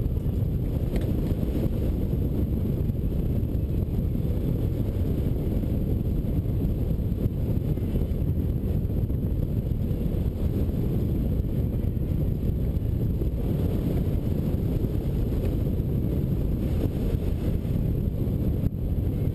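Rushing air buffeting the microphone of a camera mounted on a hang glider in flight: a steady low rumble.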